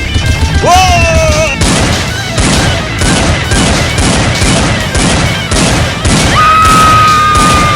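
A rapid string of blaster shots, evenly spaced at about two to three a second, over background music. A voice shouts 'Whoa!' just before the shots begin, and a long steady high tone comes in near the end.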